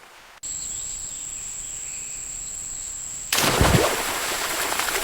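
Crickets chirping in a steady high-pitched drone. About three seconds in, a louder rush of noise with a low thump joins in over them.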